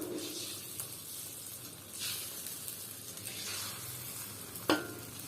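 Egg omelette frying in hot oil in a pan, a steady sizzle that grows louder for about a second midway. One sharp knock near the end.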